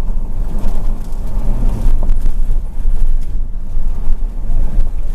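Loud, steady low rumble of a moving car, with wind and road noise heard from inside the cabin and a few faint knocks.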